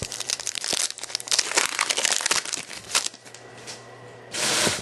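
Foil baseball-card pack wrapper crinkling and cards being handled, with many quick crackles and clicks. A short, loud rush of rustling comes near the end.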